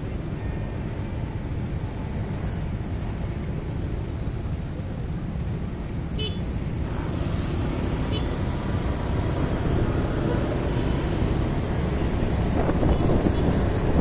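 Motorbike traffic at a junction: a steady rumble of idling and passing motorbike engines, with two short beeps at about six and eight seconds. Near the end the rumble grows louder and wind starts buffeting the microphone as the motorbike moves off.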